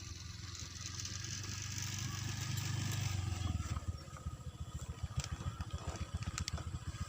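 A small engine running. Its steady low rumble gives way to a rapid, even putter about three and a half seconds in.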